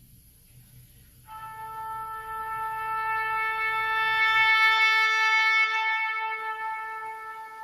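Background music: a sustained chord that enters about a second in, swells to its loudest midway and fades toward the end.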